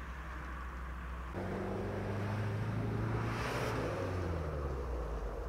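A UAZ-31512 off-roader's carburetted petrol engine pulling the vehicle away at low speed, with its ignition timing just set with a strobe. The engine note rises a little over a second in, then sags slightly in pitch later on.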